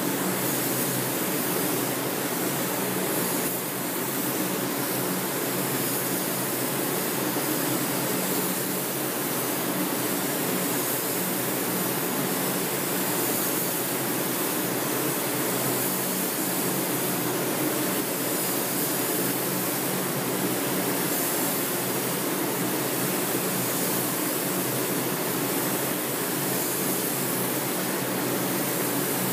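Steady hiss of compressed air through a gravity-feed paint spray gun as paint is sprayed onto a car panel, over the constant rush and low hum of the spray booth's ventilation. The hiss eases slightly a few times as the trigger is let off between passes.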